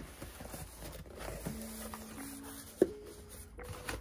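A parcel being handled and opened, with a few sharp knocks and light rustling, over faint background music of held notes.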